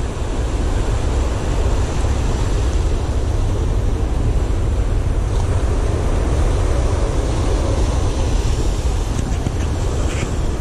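Ocean surf breaking and washing up the sand, with wind buffeting the microphone in a heavy low rumble.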